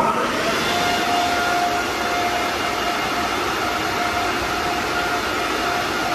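Overhead car-wash dryer blowers running: a steady rush of air with a steady high whine, the drying stage of a touchless automatic wash.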